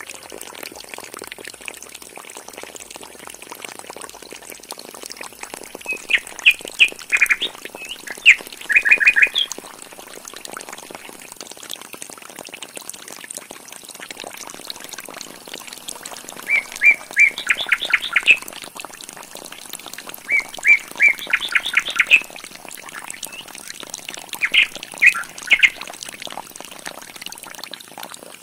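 A bird chirping in four spells of quick repeated notes, the loudest sound, over a steady hiss of a thin stream of water pouring from a small pump's pipe onto sand.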